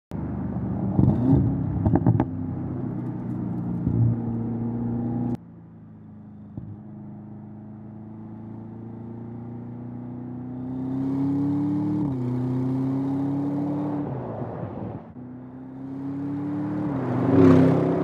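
Audi RS7 Sportback Performance's 4.0-litre twin-turbo V8 accelerating hard through the gears, its pitch climbing steadily and dropping back at upshifts about twelve and seventeen seconds in. A few sharp cracks come in the first couple of seconds, and the sound is loudest as the car passes close near the end.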